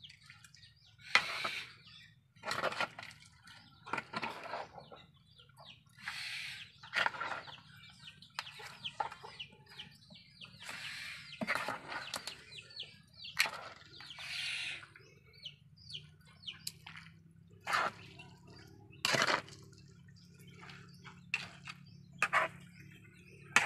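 Metal ladle scraping and stirring shredded young coconut through sticky brown-sugar syrup in a wide aluminium pan, in short irregular strokes. Clucking calls sound in the background, and a faint steady low hum comes in after about sixteen seconds.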